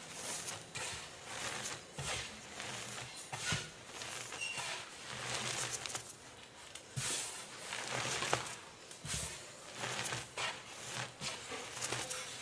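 Reformed gym chalk blocks being crushed and crumbled, a run of irregular dry crunches and crumbling crackles with a few sharper snaps.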